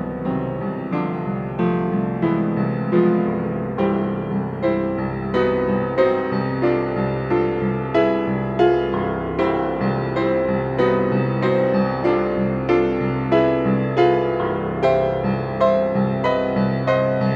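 Solo piano playing a slow, gentle ballad: evenly paced melody notes about every half second over held bass notes.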